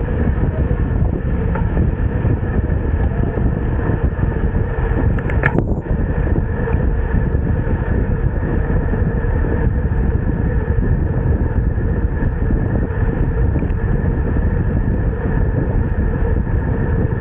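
Wind buffeting the microphone of a camera riding on a moving bicycle, a loud, steady rumble, with a short click about five seconds in.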